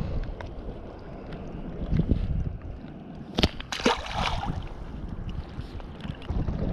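A longfin pike dropped back into shallow water, making one short splash about three and a half seconds in. Wind rumbles on the microphone throughout.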